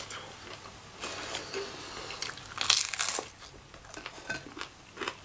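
A person eating a prawn and chilli stir fry: cutlery clicking and scraping on the plate, and chewing, with scattered short clicks and a louder rasp lasting about half a second near the middle.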